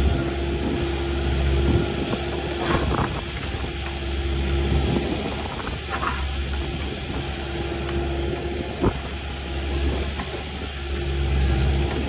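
Kubota KX080-4 excavator's diesel engine running under hydraulic load as the arm and tilt-rotator grapple move. A steady tone comes and goes over the engine drone, with a few sharp knocks.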